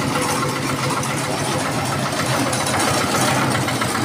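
Portable concrete mixer running steadily, its small engine driving the turning drum.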